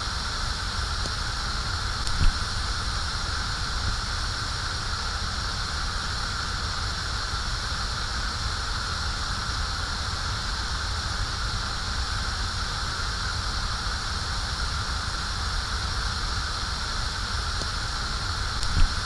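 Gas flame burning with a steady hiss over a low rumble, with a brief pop about two seconds in and another near the end.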